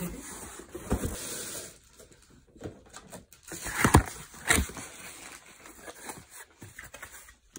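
Cardboard shipping box and packing material rustling and scraping as the boxed microphone is pulled out by hand, with scattered sharp knocks and scuffs, the loudest about four seconds in.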